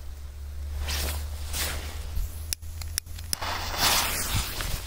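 Wind rumbling on the microphone, with rustling and three sharp clicks in quick succession about two and a half seconds in.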